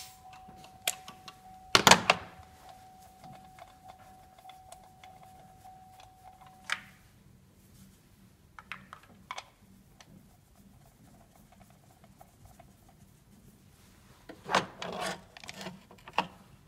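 Scattered clicks, knocks and rattles of a compression tester's hose and fittings being unscrewed and moved by gloved hands over the engine's spark-plug wells between cylinder readings. The loudest is a clatter about two seconds in, with another cluster of knocks near the end. A faint steady tone runs underneath and stops about a third of the way through.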